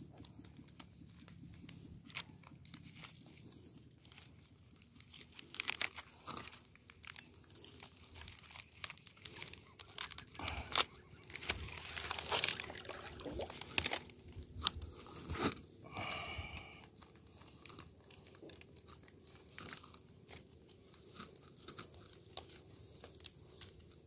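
Irregular crackling and rustling of a palm frond's leaves and stem being handled and gripped while a scarecrow is set up in a flooded rice paddy, with scattered sharp clicks and a brief pitched note about two-thirds of the way through.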